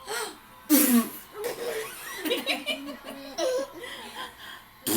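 Children laughing hard in choppy bursts, with a loud breathy outburst about a second in.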